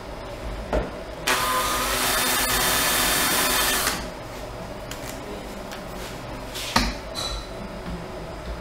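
Cordless drill running for about two and a half seconds as its bit marks a hole through a 3D-printed plastic part, with a steady motor whine. A short knock comes near the end as the drill is set against the next hole.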